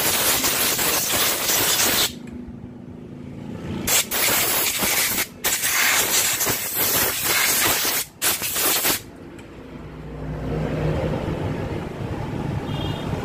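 Compressed-air blow gun blasting in four hissing bursts, the longest about two and a half seconds, to clean dust out of a worn motorcycle self-starter motor's housing and armature. The bursts stop about nine seconds in, and a low steady hum follows.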